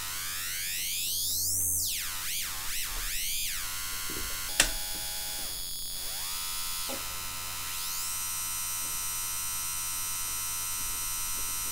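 Hard-synced analogue oscillators of a DIY modular synthesizer (the Triple Toasted Oscillator), with a fast envelope driving the sync input, giving a rich electronic tone whose pitch is swept by hand. It rises for about two seconds, swoops up and down several times and falls, then holds a steady tone for the last few seconds. There is a single click about four and a half seconds in.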